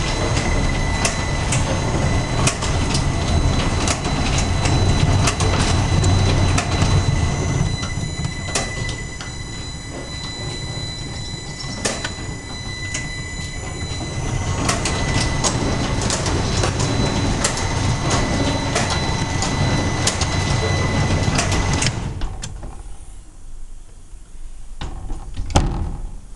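Mammens Maskiner K3G automatic end-load cartoner running: a steady mechanical clatter with frequent sharp clicks and a high, steady whine. Near the end the machine noise drops away, leaving a few isolated clicks.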